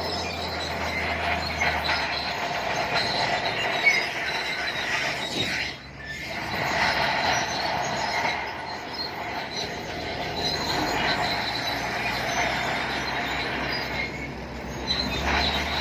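Bulldozer's steel crawler tracks squealing and clanking as it moves and pushes stone, with the diesel engine running underneath. The sound drops away briefly about six seconds in.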